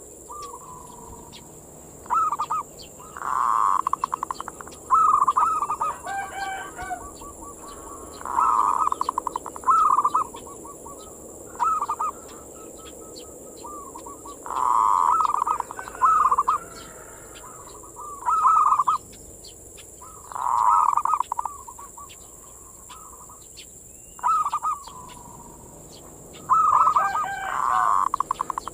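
Zebra dove (perkutut) singing its cooing manggung song: short rapid trilled coo phrases, repeated every two to three seconds.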